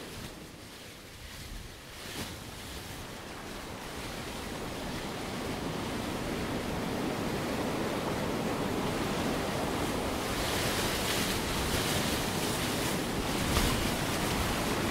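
Recorded ocean surf played through a ring of loudspeakers: a steady wash of noise that gradually grows louder, with the hiss brightening in the last third.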